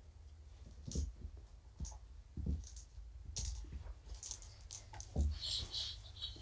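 Kittens playing with toys on a carpeted floor: scattered light clicks and rattles with a few soft thumps, and a quick run of high ticks near the end.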